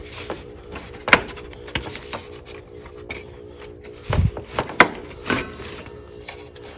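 Hand work in a Jeep XJ's engine bay as the serpentine belt is slipped off its pulleys: scattered sharp clicks and knocks of tools and metal parts, the loudest a little after one second and near five seconds, with a dull thump around four seconds. A steady low hum runs underneath.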